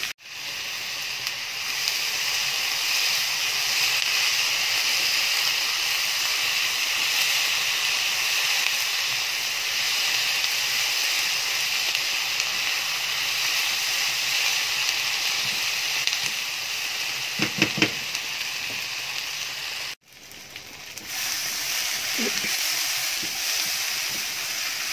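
Sliced onions with a spoonful of sugar sizzling steadily as they fry in oil in a pan, browning toward caramel. The sizzle breaks off for a moment about twenty seconds in.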